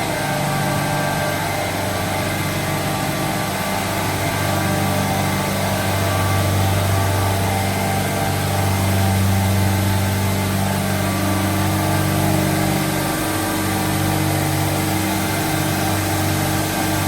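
Industrial refrigeration unit running: a steady mechanical drone with a strong low hum and fainter whining tones above it.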